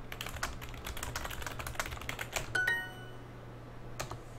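Computer keyboard typing, a quick run of key clicks for about two and a half seconds. Then a short ringing tone that fades within about half a second, and a single click near the end.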